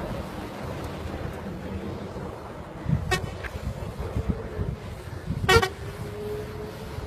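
Tour bus engine running steadily, with its horn sounding briefly about three seconds in and again about five and a half seconds in, the second time held for about a second.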